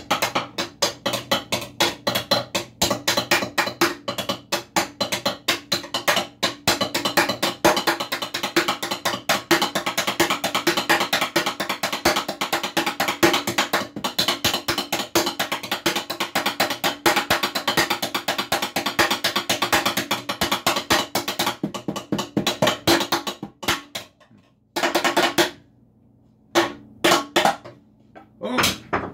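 Wooden spoons drummed fast and steadily, a quick run of wooden taps that goes on for over twenty seconds. It then stops, and a few separate knocks follow near the end.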